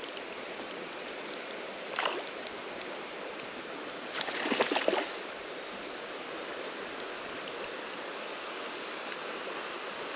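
Steady rush of creek water flowing, with two brief louder sounds about two and four and a half seconds in.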